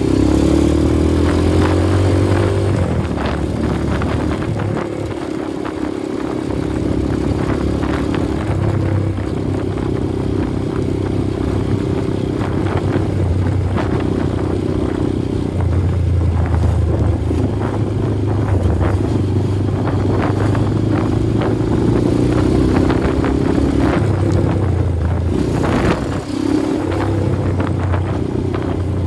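Motorcycle engine running under way, the revs rising and falling as the rider works the throttle. The revs climb in the first couple of seconds and ease off briefly around five seconds in, with scattered rattles from the ride.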